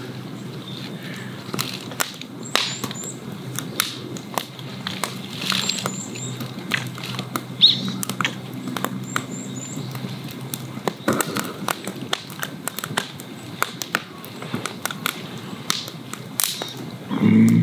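Wood campfire crackling, with irregular sharp pops, while small birds chirp in short triple notes a few times.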